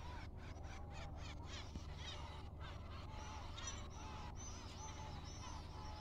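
Many birds calling over and over, with short arched calls overlapping one another, above a steady low hum.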